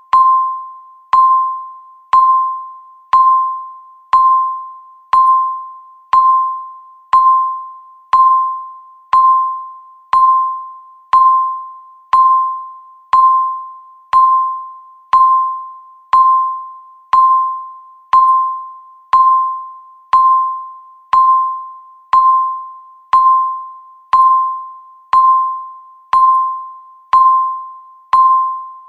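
Electronic countdown-timer beep repeating once a second: a single fairly high tone that starts sharply and fades out quickly, about 29 beeps in steady rhythm, marking each second as the timer counts down.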